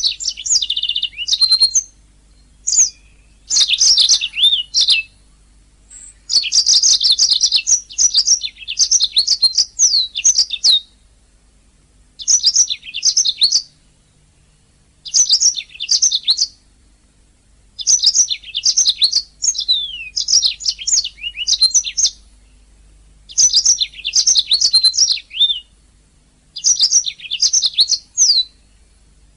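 Domestic canary singing: fast, rolling warbled phrases of trills and chirps, each lasting one to three seconds, with brief pauses between them.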